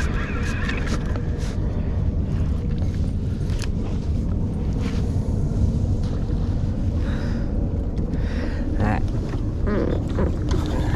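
Steady low rumble aboard a small fishing boat at sea, with a few light clicks and knocks.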